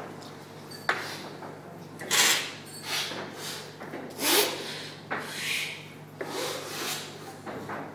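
Coffee cuppers slurping brewed coffee off cupping spoons: a string of about six or seven short, noisy slurps from several people, air drawn in with the coffee to spray it across the palate for tasting.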